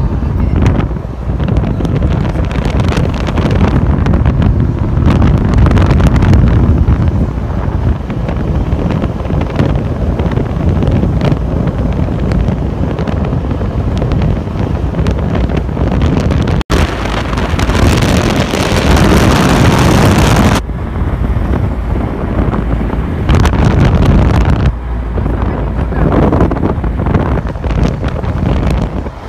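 Wind buffeting the microphone of a red powerboat running at speed across open water, over the steady drone of its engine and the rush of water along the hull. A brief dropout a little past halfway, then a few seconds of brighter hiss.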